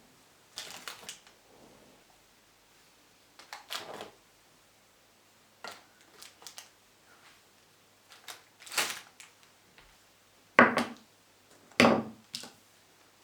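Short knocks, clicks and rustles of household objects being handled and set down during room cleaning, in several separate bursts with pauses between, the two loudest near the end.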